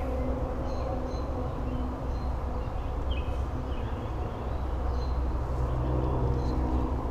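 Outdoor ambience: a steady low rumble and hum, with several short, high bird chirps scattered through it.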